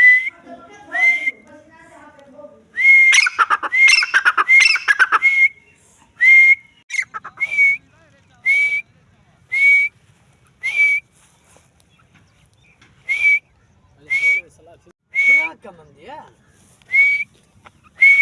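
Grey francolin (teetar) calling: short, clipped whistled notes, each with a quick upward flick, repeated about once a second, with a rapid flurry of several calls a few seconds in.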